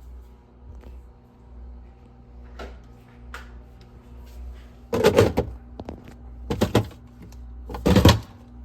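Clear plastic storage bins being handled, slid and set down, with three louder scrapes and knocks about five, six and a half and eight seconds in, over a steady hum.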